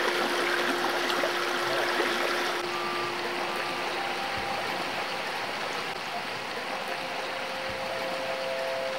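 Shallow river running over rocks: a steady rush of flowing water.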